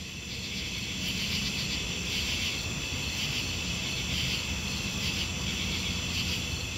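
Outdoor ambience of insects chirping in a steady, dense chorus over a low background rumble, fading in over the first second.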